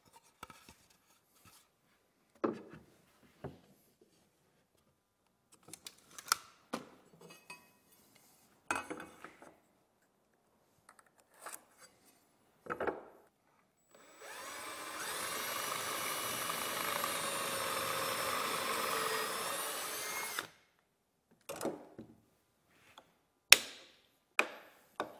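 Wooden boards knocked and set down in a few separate clunks, then a cordless drill runs steadily for about six seconds, boring pocket holes in a pine board, and stops. Sharp knocks and clicks follow.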